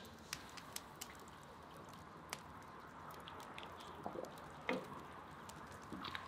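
Pot of thick kharcho soup simmering: a soft steady hiss with scattered small pops and clicks of bubbles bursting.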